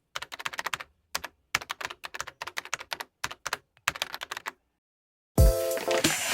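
Typing on an MC65 mechanical keyboard with Candy Red switches and GMK Cluck keycaps: quick runs of keystrokes with short pauses, stopping about four and a half seconds in. Loud music with a heavy beat starts near the end.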